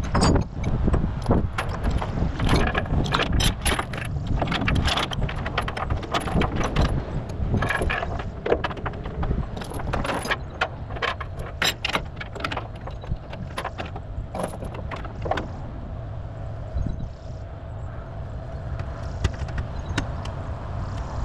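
Steel tie-down chains rattling and clanking as they are handled, dense over the first fifteen seconds or so and then thinning out, over the steady low rumble of an idling engine.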